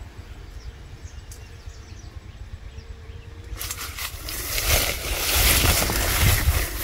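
Wind rumbling on the microphone outdoors. From about halfway through, a louder, steady rushing and rustling noise comes in.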